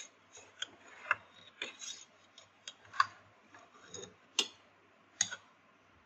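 Metal spoon clinking against the inside of a metal pressure cooker while raw beef chunks are stirred in it: a string of irregular light clicks, one about every half second.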